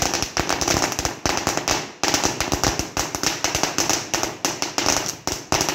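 A long string of firecrackers (a 2-metre "magic whip") going off on the ground in a rapid, continuous run of sharp bangs, with a short break about two seconds in.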